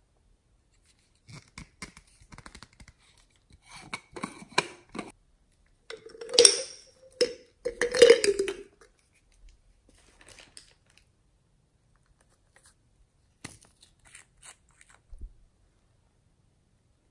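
Hard plastic containers and a small glass nail polish bottle being handled: scattered clicks and taps, and midway a louder, squeaky scraping as a plastic container lid is worked open. Softer clicks follow.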